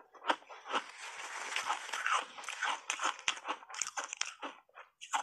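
Block ice coated in matcha powder crunching between the teeth: sharp cracks as the ice breaks, then dense crunching and chewing, with a short lull and another loud crack near the end.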